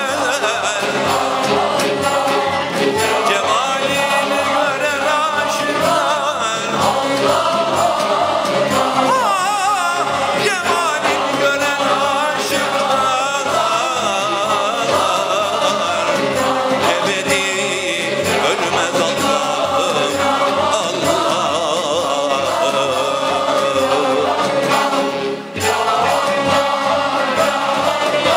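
Mixed choir of men and women singing a Turkish classical music (Türk sanat müziği) piece, accompanied by an ensemble of traditional instruments with a steady beat. There is a brief break about 25 seconds in.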